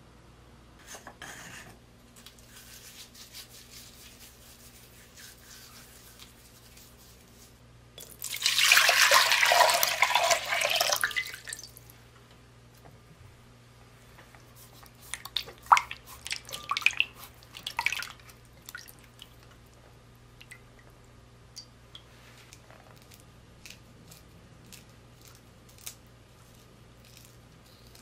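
Water runs into a glass bowl for about four seconds. Then come a few seconds of splashing and light knocks as mikan are rubbed with salt and rinsed in the water, followed by faint scattered ticks of handling.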